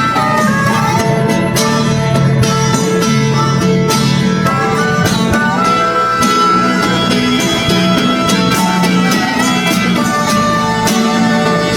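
Instrumental background music in a country or bluegrass style, with plucked strings and a steady beat.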